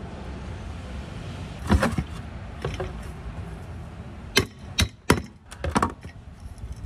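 Hammer taps on metal at an aluminium sailboat mast, knocking out the remains of a rivet: two quick taps about two seconds in, then a cluster of four or five sharp taps from about four and a half to six seconds in.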